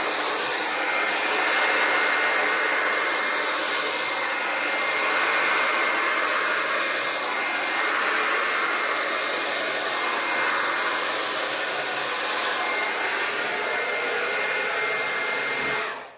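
Hand-held hair dryer running steadily, a rushing airflow with a thin high motor whine, swelling and easing a little as it is swept over wet acrylic paint. It is switched off just before the end and the sound dies away within about half a second.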